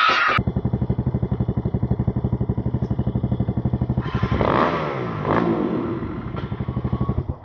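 Dirt bike engine idling with a fast, even thump, after a brief loud rushing noise at the very start. About four seconds in, an engine revs up and down over the idle, which then carries on until it stops near the end.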